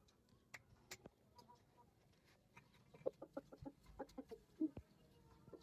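Aseel game chickens clucking softly: a quick run of short, low clucks from about two and a half seconds in until near the end, after a few faint clicks in the first second.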